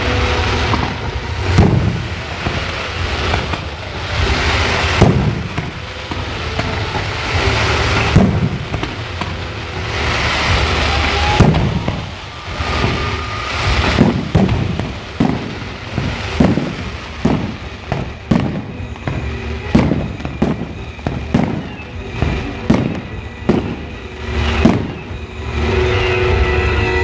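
Aerial fireworks display: shells bursting with sharp bangs, a few big ones about three seconds apart in the first half, then a quicker run of bangs about one a second from about halfway on.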